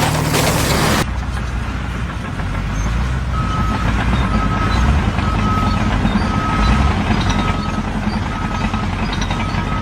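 A heavy vehicle's reverse alarm beeping about once a second over the vehicle's low engine rumble. The beeping starts about three seconds in. Before it, for about the first second, there is a loud burst of hissing noise.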